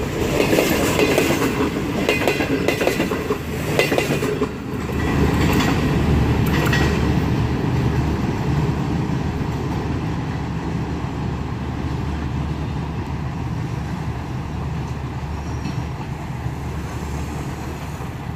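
Green Line Express passenger coaches rushing past close by, their wheels clattering over the rail joints. About four and a half seconds in, the sound changes to a steadier, lower train rumble that slowly fades.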